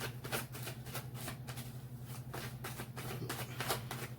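A deck of tarot cards being shuffled by hand, a quick, irregular run of papery riffles and flicks, over a steady low electrical hum.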